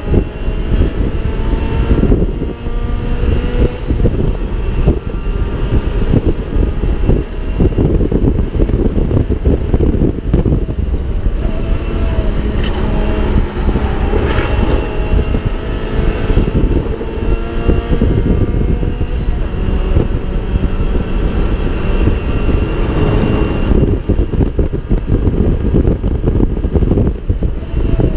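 Mazda MX-5 race car's four-cylinder engine heard from inside the car, running hard. Its pitch climbs repeatedly and drops back at each gear change, over heavy wind and road rumble.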